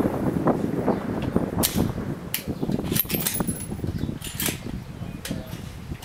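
The fading echo of a .308 rifle shot, then a scatter of sharp cracks and clicks: distant shots from other rifles on the range.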